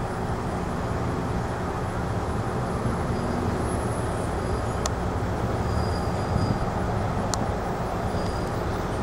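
Hi-rail utility truck running along the railroad track on its rail guide wheels toward the listener: a steady low rumble of engine and wheels. Two short sharp clicks sound, about halfway through and again later.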